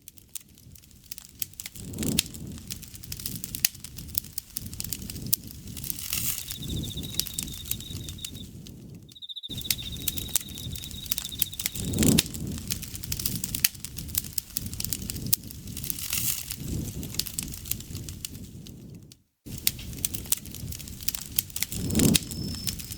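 Campfire crackling and popping steadily, with an insect's steady high trill from about six seconds in until about halfway, and another, higher trill starting near the end. The sound cuts out briefly twice.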